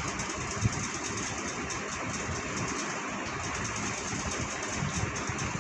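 Thin curry broth at a boil in a pan on the stove, bubbling steadily.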